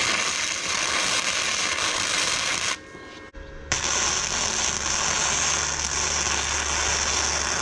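Welding arc crackling in two runs as a nut is tack-welded onto the steel table frame, with a short break about three seconds in. A low hum comes in under the second run.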